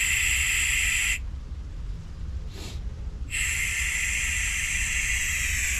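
Nitrogen hissing out of a Trane heat pump's refrigerant service valve as the pressure-test charge is bled down little by little, to just above zero. It is a steady, slightly whistling hiss that cuts off about a second in, gives one faint short puff near the middle, and starts again about three seconds in.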